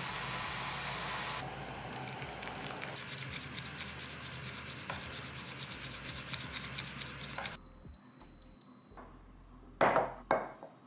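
A spoon scrapes matcha powder through a fine metal mesh sieve into a ceramic bowl. A bamboo matcha whisk then whisks the tea in the bowl with rapid, even strokes, which stop abruptly. Near the end come two sharp knocks, as a ceramic mug is set down on the counter.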